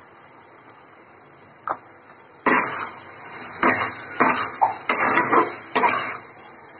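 A metal spatula scraping and stirring pumpkin pieces around a steel kadhai, starting about two and a half seconds in with a run of loud, sudden strokes over a frying sizzle. Before that there are only a couple of faint taps.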